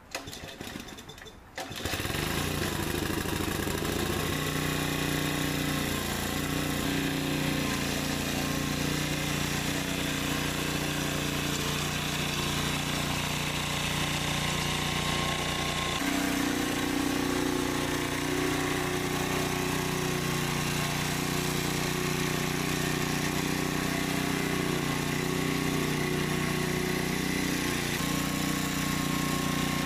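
Small gasoline engine of a rototiller coming up to speed about two seconds in, then running steadily while tilling the ground loose; its pitch shifts at about sixteen seconds.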